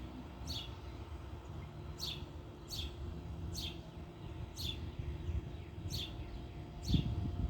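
A songbird repeating a short, high, falling chirp about once a second, over a low steady machine hum.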